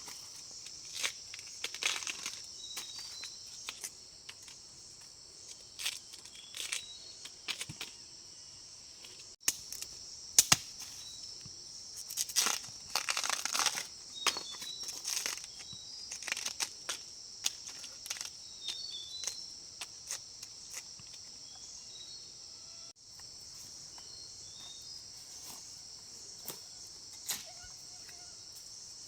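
Steady high-pitched insect chorus, with repeated crackling, rustling and tearing of plant material over it, busiest about halfway through.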